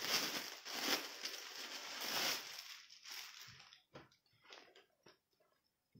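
Rustling and crinkling of folded mekhela sador cloth being picked up and unfolded by hand. It is dense for the first two and a half seconds, then thins to scattered soft rustles and light taps.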